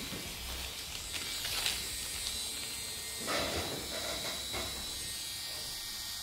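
Podiatry drill with a fine burr running steadily with a small-motor whine and hum, used to burr down a hard corn on a toe. There is a short, rougher, louder stretch a little past three seconds in.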